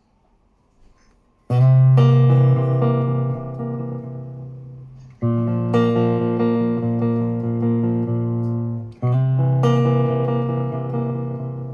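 Guitar played through a JHS Colour Box V2 preamp pedal: a chord is strummed, struck again a moment later and left to ring out and fade. This happens three times, after a short quiet start.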